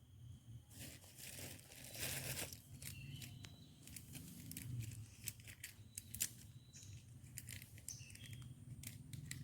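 Faint irregular rustling and crackling, with scattered sharp clicks.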